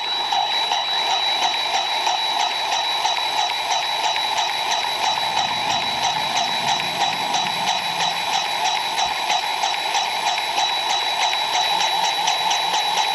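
DeWalt battery-powered grease gun running steadily, its motor whining with a fast, even pumping pulse of roughly four strokes a second as it forces grease into a mower's front caster wheel hub.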